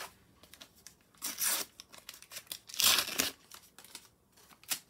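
A Panini sticker packet being torn open by hand: two loud rips of the wrapper about a second and a half apart, with crinkling between them and a short sharp crackle near the end.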